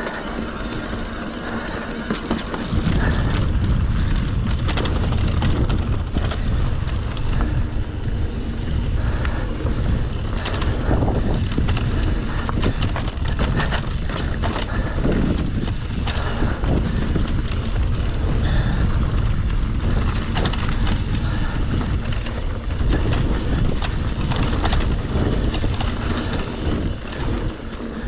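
Electric mountain bike being ridden down a dirt trail: tyres on dirt and rock, bike rattle and wind buffeting the microphone, louder from about three seconds in.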